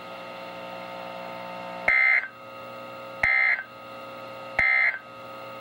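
Three short bursts of EAS/SAME digital data tones from a NOAA Weather Radio broadcast, each about a third of a second and about 1.3 s apart, over a steady hum. These are the end-of-message bursts that close a severe thunderstorm warning.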